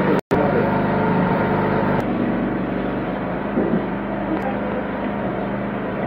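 Steady background drone of running vehicle engines and traffic, cutting out for a moment about a quarter of a second in.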